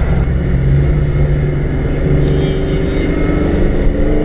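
Fox-body Ford Mustang's 5.0 (302) V8 running while driving, its pitch rising near the end as it starts to pull harder.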